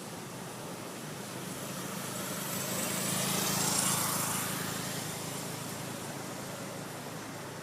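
A vehicle passing by: its road noise swells to a peak about four seconds in and fades away, over a steady low hum.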